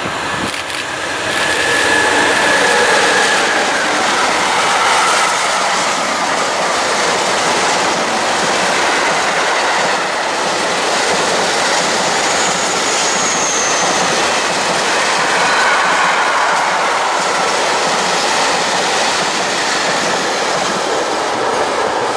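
Freight train of covered hopper wagons hauled by a BB 27000-class electric locomotive running past close by: a steady rumble and rattle of wheels on rail that builds over the first couple of seconds. Brief faint wheel squeals come near the start and about midway.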